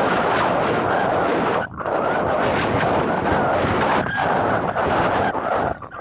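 Wind buffeting the phone's microphone: a loud, steady rush with brief lulls about two seconds in and near the end.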